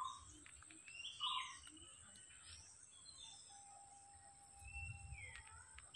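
Birds chirping and calling in short scattered notes, with a faint steady high whine behind them.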